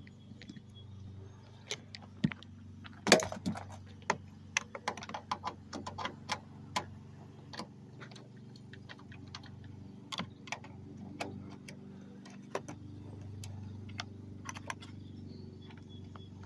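Irregular metallic clicks and clinks of a socket ratchet and hand tools, some in quick runs, as the tail light bolts are worked out.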